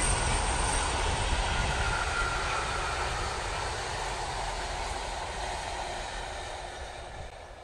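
Class 47-hauled passenger train moving away, its rumble fading steadily as the last coaches run out of sight.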